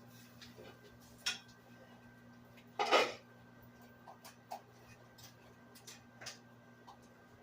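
Kitchenware clinking and knocking: a few scattered clicks, a sharper click just over a second in and a louder clatter about three seconds in, over a steady low hum.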